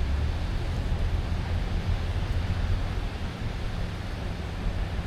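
Steady city ambience: a continuous low rumble of traffic under an even wash of noise.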